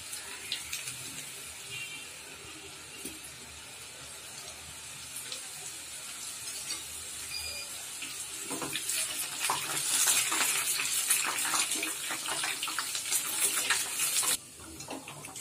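Wheat-flour dough pieces deep-frying in hot oil in a steel kadai, a steady sizzle. From about eight seconds in it grows louder, with crackling and the scrape and clink of a slotted spoon stirring them, then drops off abruptly near the end.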